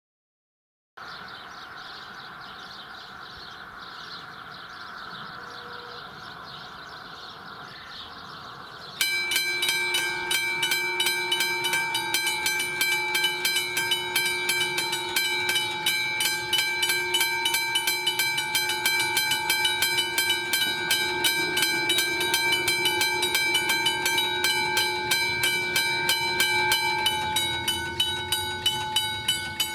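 McKenzie & Holland teardrop level-crossing bells starting up about nine seconds in, struck rapidly and ringing with several steady tones, after a stretch of quiet outdoor ambience. Near the end, as the boom gates come down, the ringing thins as one bell stops.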